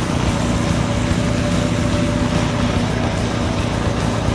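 Gas pressure washer engine running steadily under load, with the hiss of high-pressure water spraying from a RYOBI 16-inch surface cleaner's spinning spray bar as it is pushed over concrete.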